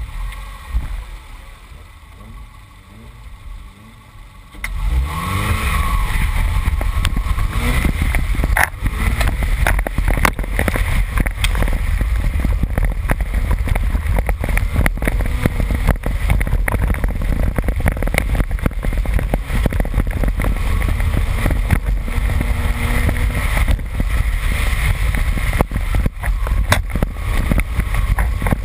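2001 Subaru Impreza 2.5RS's 2.5-litre flat-four held at revs, then launching hard about four and a half seconds in and running loud at full throttle on loose dirt. Many sharp ticks and knocks from gravel and dirt striking the car.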